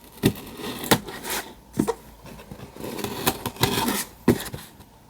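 A parcel being opened by hand: cardboard and packaging handled and torn, rustling, with a series of sharp clicks and knocks.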